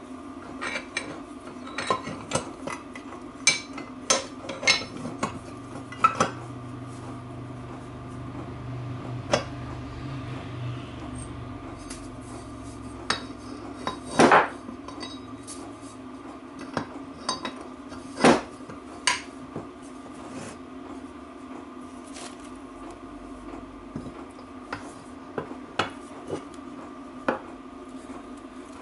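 Metal parts clinking and knocking irregularly as the rear differential pinion, bearing and spacers are handled and fitted into the casing by hand. Two louder knocks come around the middle, over a steady background hum.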